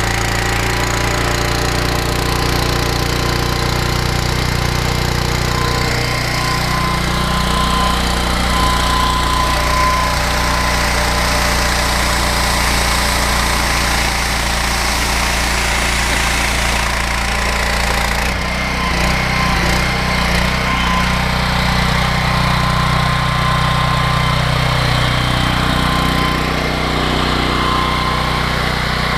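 Honda GX390 single-cylinder petrol engine of an engine-driven pressure washer running steadily, driving the Interpump pump, with a steady whine over the engine note. The sound shifts briefly about 18 seconds in.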